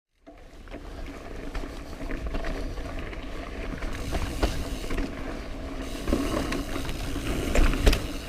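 Mountain bike rolling over a dirt trail: steady tyre noise and rumble with a rattling bike, and a few sharp knocks over bumps, the loudest near the end.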